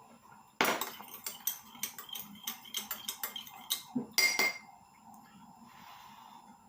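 Spoon clinking against a cup as tea is stirred: a quick run of light clinks, about four or five a second, for about four seconds, ending with a few louder ringing clinks.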